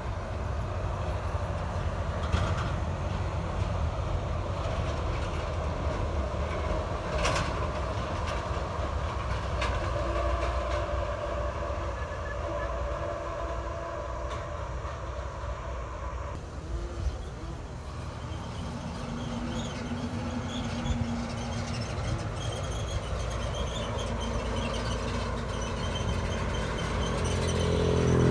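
Heavy diesel trucks passing on a highway: container tractor-trailers and a dump truck give a steady low engine and tyre rumble. The rumble grows louder near the end as the dump truck goes by.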